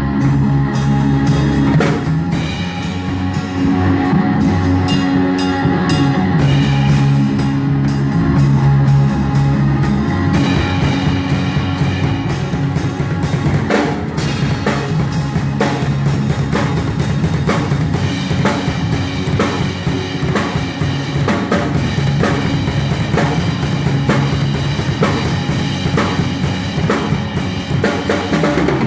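Live rock band playing through a PA, with the drum kit's kick and snare hits up front over sustained bass and guitar notes.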